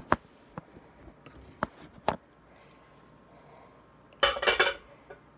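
A plate and fork being handled: a few sharp taps and knocks in the first two seconds, then a brief, louder rattle about four seconds in.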